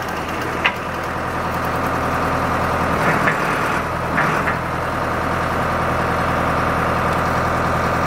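Ford 675D backhoe loader's diesel engine running steadily while the backhoe arm and bucket are worked, with a sharp click under a second in and two brief louder rises around three and four seconds in.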